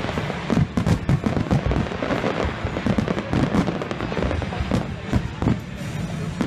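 Aerial fireworks display: a dense, continuous run of bangs and crackling from many shells bursting close together.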